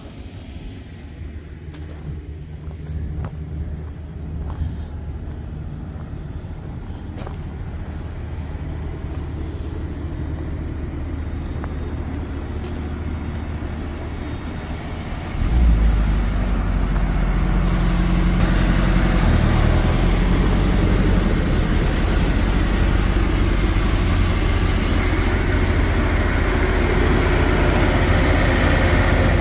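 Diesel engine of a semi truck idling with a steady low hum and a few light clicks. About halfway through it suddenly gets much louder and stays loud.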